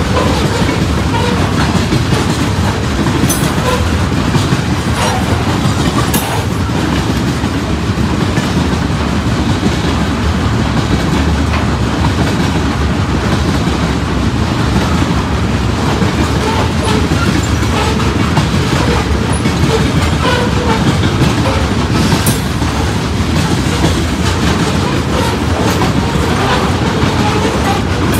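Freight train cars rolling past close by: a steady rumble of wheels on rail, with a few sharp clicks of wheels over rail joints.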